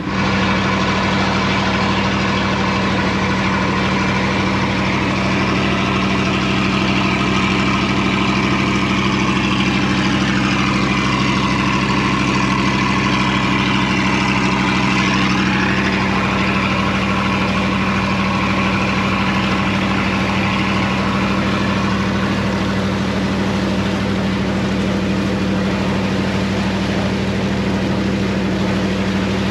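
Engine of a Laotian river slow boat running steadily under way, a constant low drone.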